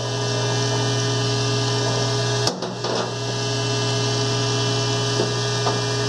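Steady hum of vacuum pumps running with several steady tones while the hose line is held under vacuum for a helium leak test. A single click comes about two and a half seconds in, after which the deepest part of the hum drops a little.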